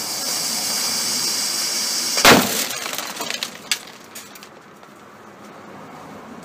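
Airsoft pyrotechnic grenade's fuse hissing and spitting sparks, then the grenade goes off with one sharp bang a little over two seconds in. A few faint clicks follow.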